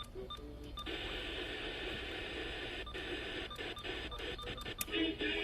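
Dense hiss of emergency-alert broadcast audio from a radio receiver, cut off above the range of a radio channel, following a run of rapid short beeps. The hiss drops out briefly several times in its second half, and music comes in near the end.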